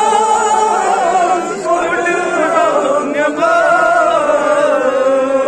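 Men's voices chanting a noha, a Shia mourning lament, in long held melodic lines that waver in pitch.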